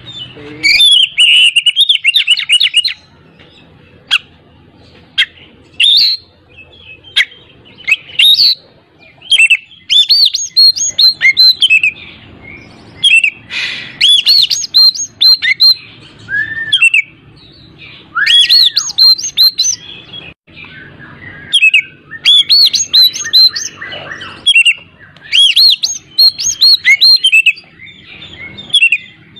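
Oriental magpie-robin singing loudly in bursts of rapid, varied chirps and whistles, separated by short pauses, with a few lower, arching whistles about halfway through.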